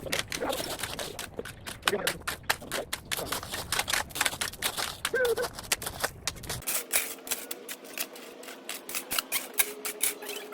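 Rapid clicking and scraping of gravel being raked and shovelled to grade a base for concrete. About seven seconds in, the low rumble drops away and a faint steady hum comes in.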